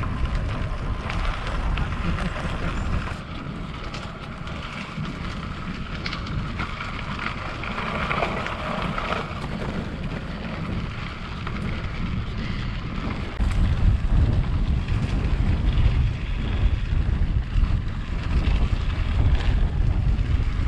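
Wind buffeting the microphone of a camera on a moving bicycle, with road and tyre noise beneath it. The rumble gets louder about 13 seconds in.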